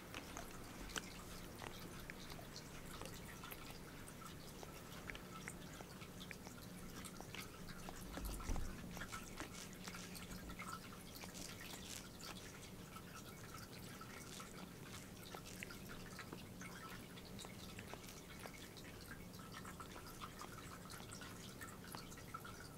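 A domestic cat grooming herself close up, her tongue and mouth working her fur in an irregular run of small wet clicks, over a steady low hum. A soft low thump about eight and a half seconds in.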